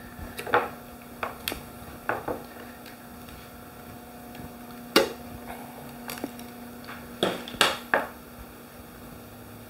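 Paint can lid being pried off with a screwdriver: scattered sharp clicks and taps, the strongest about five seconds in and a quick cluster near the end, over a steady low hum.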